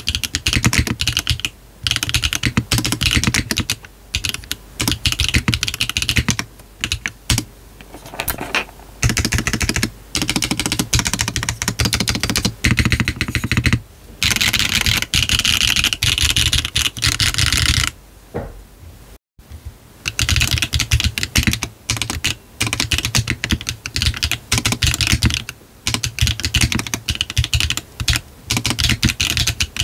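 Continuous fast typing on a GDK DK1-TKL custom mechanical keyboard with a brass bottom, PBT cherry-profile keycaps, a 1.6 mm PCB, no foam and hard gasket mounting. For about the first 19 seconds it is fitted with Yogurt switches; after a brief pause the typing resumes on HMX 幻紫 (Phantom Purple) switches.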